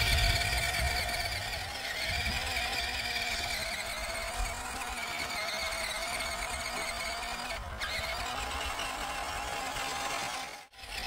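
Steady whine of a 1/12-scale MN78 Jeep Cherokee RC crawler's 280 brushed electric motor and gears as it drives, wavering slightly in pitch. The sound drops out briefly near the end.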